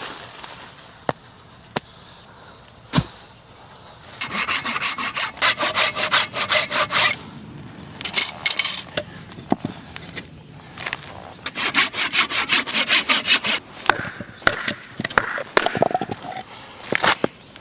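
Hand saw cutting into a log with fast back-and-forth strokes, in two spells of about three seconds each, with single knocks and taps of wood between them. This is the slitting of the log for a Swedish torch.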